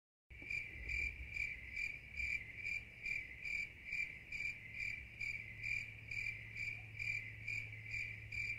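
Cricket chirping sound effect: a steady run of chirps, about two a second, used as the comic cue for an awkward silence. A faint low hum runs underneath.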